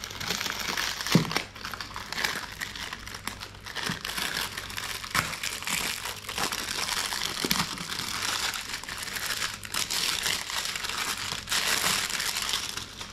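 Clear plastic wrapping crinkling and rustling as it is pulled off a small cardboard box and crumpled by hand, a dense run of crackles with sharp snaps.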